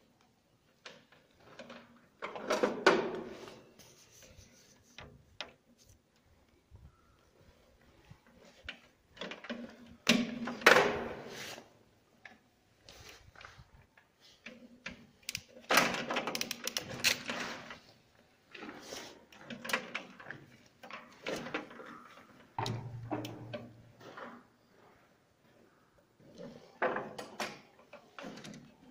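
Irregular rustling, clicking and clattering from gloved hands working stiff wires and a crimping tool inside a metal electrical panel enclosure, with several louder bursts of handling noise.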